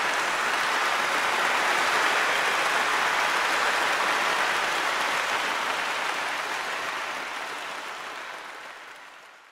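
Audience applauding steadily, the clapping fading away over the last couple of seconds.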